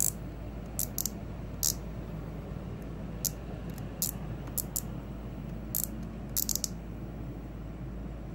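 Star drag of a baitcasting reel being turned notch by notch, each step giving a sharp, high click. About a dozen irregularly spaced clicks, with a quick run of several near the end.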